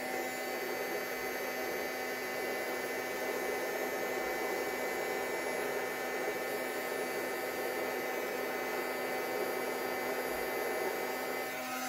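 Handheld heat gun running steadily: an even rush of blown air with a constant hum.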